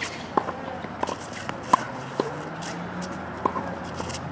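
Tennis ball struck by a racket and bouncing on a hard court during a groundstroke rally: a string of sharp pops, with shoe scuffs and footsteps between shots.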